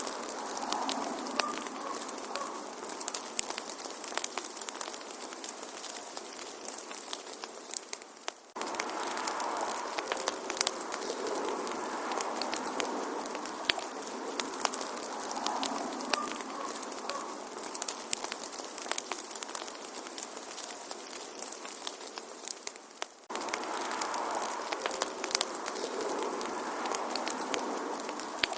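Fireplace fire crackling, with frequent sharp pops over a steady hiss. Twice, about eight and twenty-three seconds in, the sound sinks briefly and then starts again abruptly.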